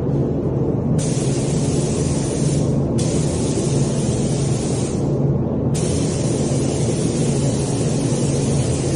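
Spray gun hissing in bursts as its trigger is pulled while laying down primer: the hiss starts sharply about a second in, breaks briefly near the third second, stops for under a second around the fifth, then starts again. A steady low hum runs underneath.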